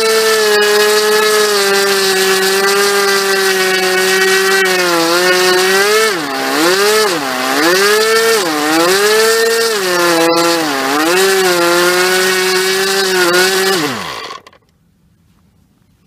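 O.S. 49-PI single-rotor Wankel model aircraft engine, the later version with peripheral intake and exhaust ports, running at high revs with a loud exhaust note. From about five seconds in the revs dip and recover several times, and about fourteen seconds in the revs fall away and the engine stops.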